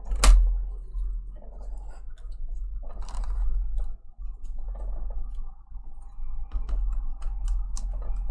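Clicks and light knocks of a picture frame being handled as its backing is fitted back in: one sharp click just after the start, then scattered smaller clicks and soft rustles.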